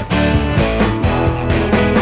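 Background music: a rock track led by guitar over a steady drum beat.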